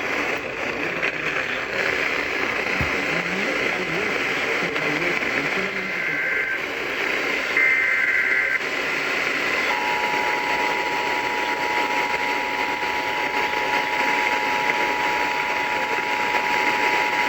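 NOAA Weather Radio alert heard through a receiver with steady static hiss: brief bursts of warbling SAME digital header tones about six and eight seconds in, then the steady two-tone emergency attention signal, which starts near ten seconds and holds to the end.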